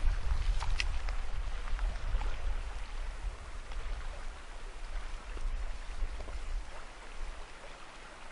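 Wind buffeting the microphone in an uneven low rumble over the steady rush of a flowing river, with a couple of faint high ticks about a second in.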